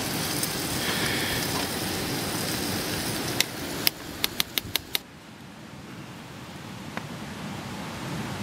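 Steady rushing noise, then a few sharp clicks in quick succession, a spork knocking against the rim of a steel camp pot while serving pasta, about four seconds in. After that the rushing drops away to a quieter, even hiss.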